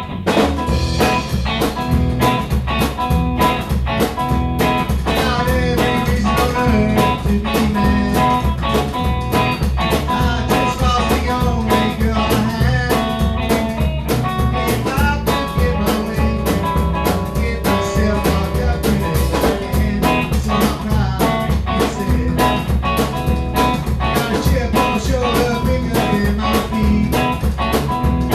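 A band playing an upbeat song: guitars and bass over a drum kit keeping a steady beat.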